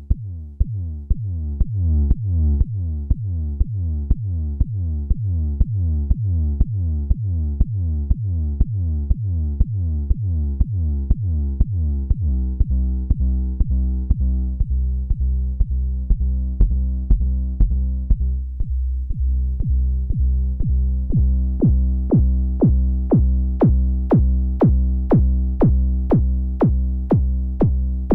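Behringer Neutron analog synthesizer playing a repeating pattern of short plucked bass notes, about three a second. About twelve seconds in, a sustained droning bass tone joins under the steady pulse. Near the end the pulses turn brighter and clickier.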